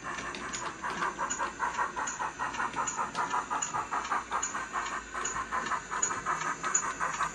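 ESU LokSound DCC sound decoder in a Bachmann OO gauge 94XX Pannier tank model playing steam-locomotive exhaust chuffs through its small speaker as the model runs, a steady rhythm of about four chuffs a second. A light high tick recurs about every three-quarters of a second under the chuffs.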